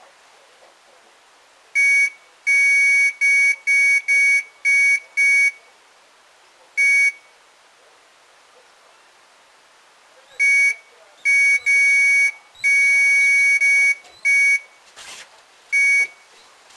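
Electronic carp bite alarm bleeping in irregular bursts: single bleeps, quick runs, and one longer unbroken tone in the second half. It is the signal of line being pulled through the alarm, a fish taking the bait.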